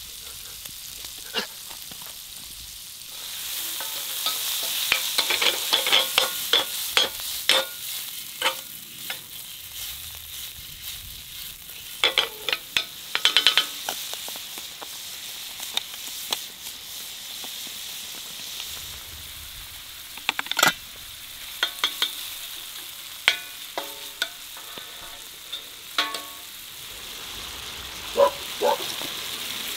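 Food sizzling in a hot pan while being stirred, with frequent clicks and clatters of a utensil against the pan. The sizzling grows louder about three seconds in.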